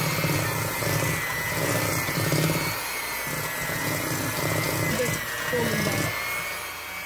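Electric hand mixer running, its beaters churning butter and sugar in a stainless steel bowl. There is a steady motor whine over a lower churning noise, and the churning drops away about six seconds in.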